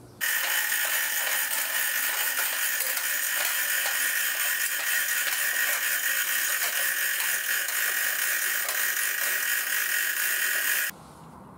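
Manual chain hoist rattling continuously as its hand chain is pulled to lift the rear of a lawn tractor. The rattle starts and stops abruptly.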